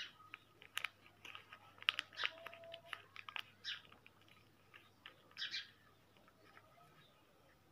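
A small sheet of paper being folded and creased by hand: faint crinkling and rustling with sharp crisp snaps as the folds are pressed, mostly in the first six seconds.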